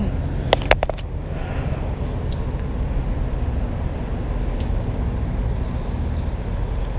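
Steady low rumble of wind on the microphone, with a few sharp clicks about half a second in.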